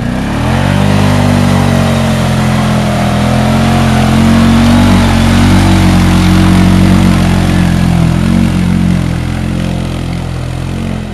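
2009 Arctic Cat 550 H1 ATV's single-cylinder engine revving hard under load as the quad drives through deep mud and water, with mud and water splashing. The engine climbs in pitch in the first second, holds at high revs, then fades near the end as the quad pulls away.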